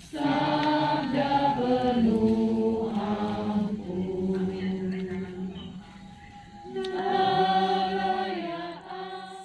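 A small group of people singing a slow hymn together in unison, holding each note, with a brief lull just after the middle.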